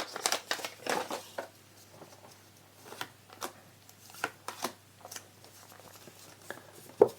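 Star Wars Unlimited trading cards being flicked through and slid past one another in the hand, a quiet, irregular run of soft clicks and rustles.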